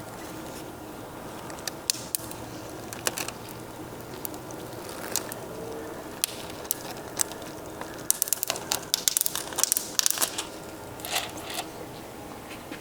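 Light clicks and taps from handling small plastic display parts by hand: scattered single clicks, then a rapid flurry of them about eight seconds in.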